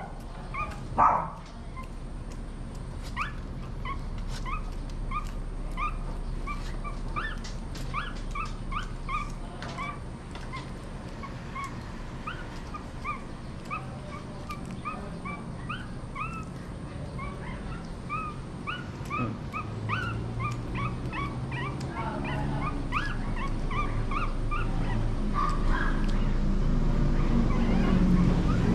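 Young Shih Tzu puppies whimpering: many short, high squeaks, a few a second, over a low steady hum. A low rumble grows louder over the last several seconds.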